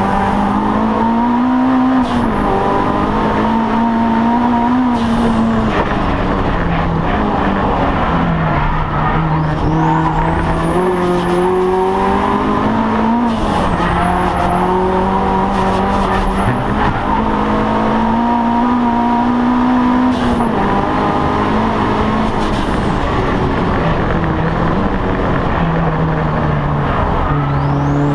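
Audi TT race car engine heard from inside the cockpit, pulling hard and easing off through the gears: the pitch climbs, then drops sharply at each gear change, several times. A high whine rises and falls with the revs.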